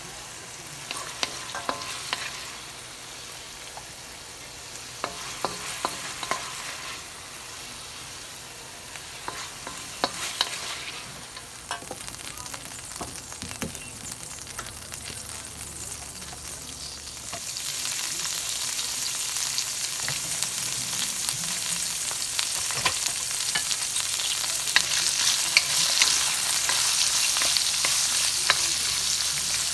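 Wooden spatula scraping and tapping in a hot wok over a low sizzle as the stir-fried beef is lifted out. About halfway through, asparagus pieces go into the hot oil and the sizzle becomes much louder and stays up while they are stirred.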